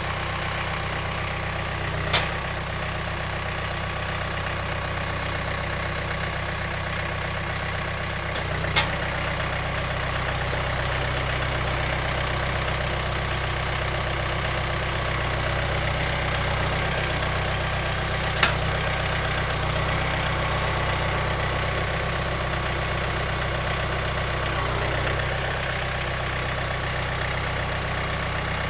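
John Deere 4044M compact tractor's four-cylinder diesel running steadily at low revs while its grapple works the logs, a little louder in the middle. Three sharp knocks stand out over it, about 2, 9 and 18 seconds in.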